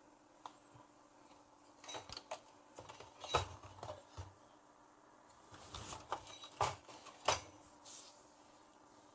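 Small clicks and taps of hand tools and parts being handled on an electronics workbench, scattered through the middle, with sharper taps about three and a half and seven seconds in. A faint steady hum runs underneath.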